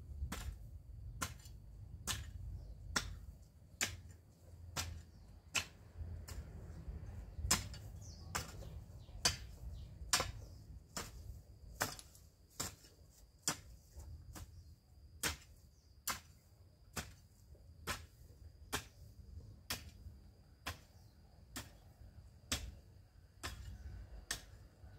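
Sharp clicks repeating evenly, a little more than one a second, over a low rumble, with a thin steady high tone joining about ten seconds in.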